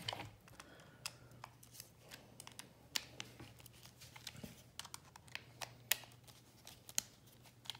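Light, scattered clicks and taps of hard plastic being handled: a robot vacuum drive-wheel assembly and a small cordless screwdriver picked up and the bit fitted to a housing screw. A faint steady low hum sits underneath.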